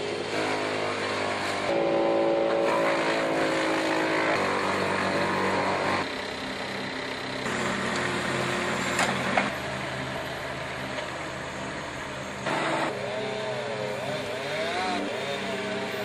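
Mini skid steer's engine running under load, its pitch rising and falling as it works, with the sound changing abruptly a few times.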